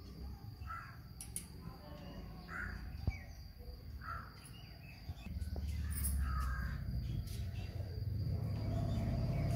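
A bird calling four times, a short call every second and a half or two, over a low rumble that grows louder about halfway through.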